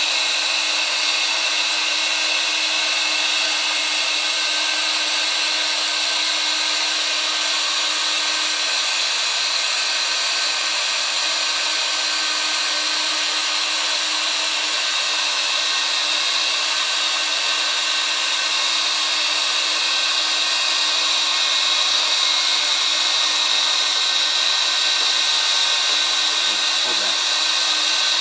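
Heat gun set to high, blowing a steady rush of hot air through a homemade reduced-diameter tube nozzle to desolder a small component from a laptop logic board.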